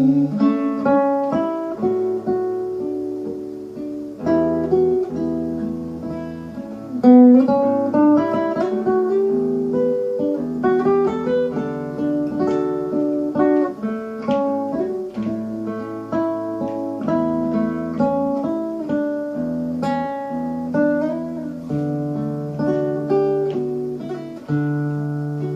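Instrumental break of a ballad: acoustic guitar picking a melody of quick plucked notes over held bass notes.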